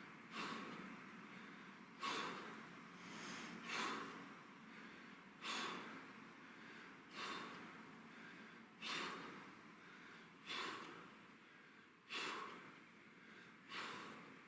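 A man breathing hard through a set of kettlebell exercises: a sharp, forceful exhale about every one and a half to two seconds, nine in all, in time with each rep.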